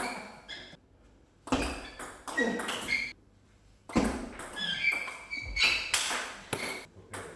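Table tennis rally: the celluloid ball knocking off bats and table in irregular strikes, with short high squeaks in between.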